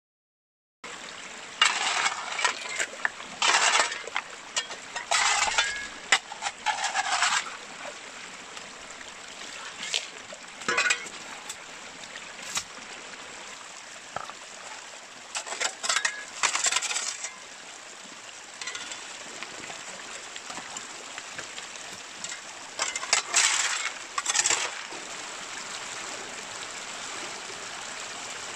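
Stones and gravel clinking and scraping against metal in a series of short, irregular bursts, over the steady rush of a stream.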